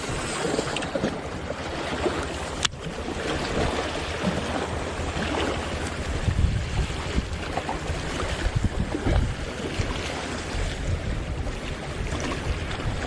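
Waves washing against a rocky shore, with wind buffeting the microphone as a low rumble. A single sharp click about two and a half seconds in.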